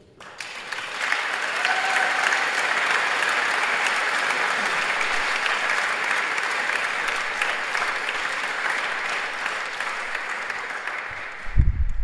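Audience applauding at the end of a live piano piece: the clapping swells up within the first second, holds steady, and thins out near the end, when a burst of low rumbling comes in.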